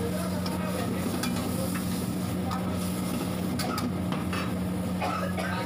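Diced vegetables sizzling in a carbon-steel wok over a high gas flame, with a metal ladle scraping and clicking against the wok as they are stir-fried. A steady low hum runs underneath.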